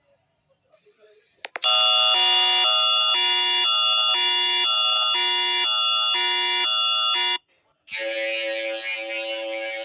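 Emergency-alert-style alarm tones. Two tones, high and low, alternate about every half second for roughly six seconds and stop abruptly. After a short gap a steady, dense alert tone starts.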